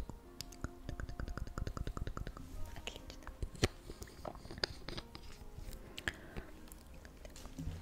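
Close-miked ASMR trigger sounds: a fast, even run of soft clicks and taps for a couple of seconds, then slower, scattered sharper clicks.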